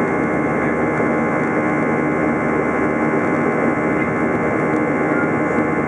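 Steady jet engine and airflow noise heard inside the cabin of an Airbus A321 climbing after takeoff, with a constant hum of steady tones beneath the rush.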